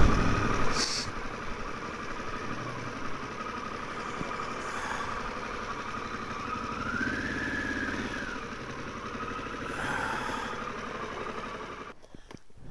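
Harley-Davidson Pan America 1250's V-twin engine running low and idling as the motorcycle rolls slowly to a stop. Its note rises and falls briefly about seven seconds in, and the sound drops away about twelve seconds in.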